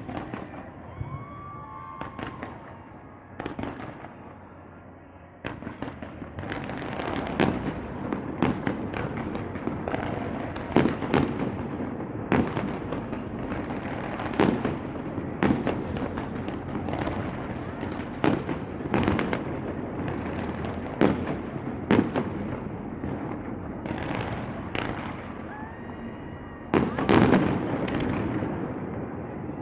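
Fireworks display: shells bursting in a run of sharp bangs, sparse for the first few seconds, then coming thick from about five seconds in, with a dense cluster of bursts near the end.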